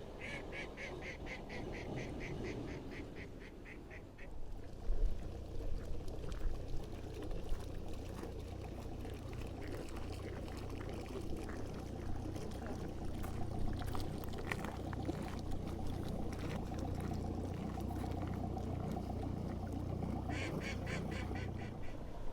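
A duck calls a quick, even run of quacks for about four seconds, and again briefly near the end. Under it are wind noise and the low, steady hum of a boat's engine, which comes in about four seconds in.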